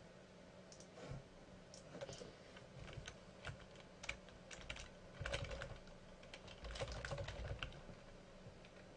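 Computer keyboard typing: faint, irregular keystrokes, bunching into quicker runs a little past halfway and again shortly after.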